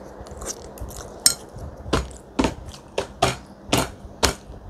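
A hand repeatedly slapping a cloth-covered tabletop in delight, starting about a second in, with about eight slaps at roughly two a second.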